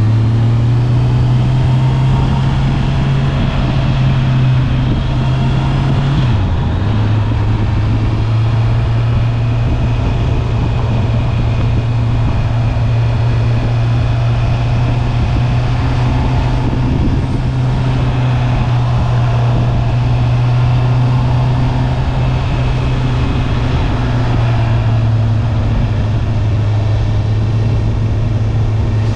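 Stock Honda CB650R's inline-four engine running steadily at riding speed, with road and wind noise. About six seconds in the engine note drops briefly and settles a little lower, as at a gear change, then holds a steady drone.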